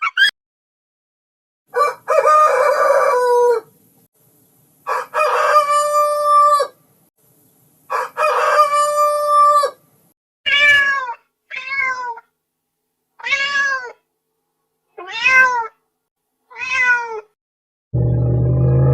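Three long animal calls of even pitch, each a little under two seconds, followed from about ten seconds in by six short domestic cat meows that rise and fall in pitch.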